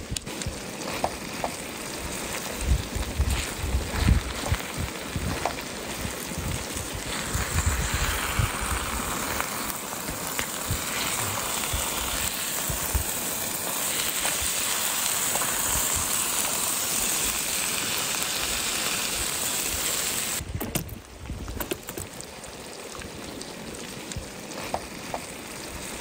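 Eggs, sausage, potatoes and peppers sizzling in a frying pan, a steady hiss that grows louder partway through. It cuts off abruptly about two-thirds of the way through, leaving a quieter sound with low rumbles.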